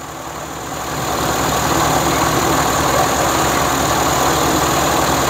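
1925 Maxwell's four-cylinder engine picks up speed over the first second or so, then runs steadily. It is running on fuel poured in by hand while its vacuum-tank fuel feed is suspected of starving it.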